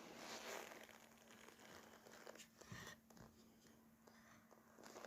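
Near silence: faint night-time background with a few small rustles and a faint steady low hum.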